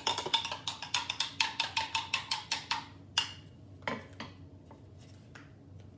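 Metal spoon stirring instant coffee in a mug, clinking rapidly against the sides for about three seconds, then a few single taps.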